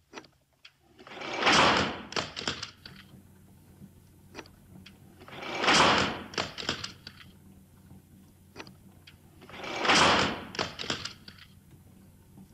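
HMV 109 wind-up gramophone being wound by its hand crank: a swelling grinding whir from the spring motor, each followed by a few clicks, repeating about every four seconds.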